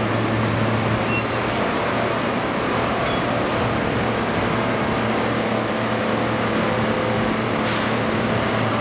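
Steady engine drone with a constant low hum over a rushing noise, unchanging in level.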